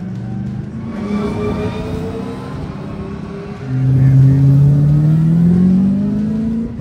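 Racing car engines accelerating, their pitch climbing steadily. About halfway through a much louder car comes in and pulls up through the revs for about three seconds before fading just before the end.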